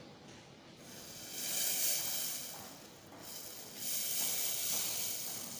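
Hot tomato soup being poured from a steel saucepan into a ceramic bowl, heard as a hissing noise that swells twice.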